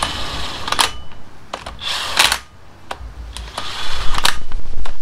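Cordless impact gun running the flywheel bolts in on an engine's crankshaft in three short rattling bursts, each under a second.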